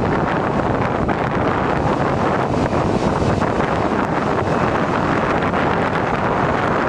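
Boeing 737 jet engines on final approach, a steady noise, mixed with wind buffeting the microphone.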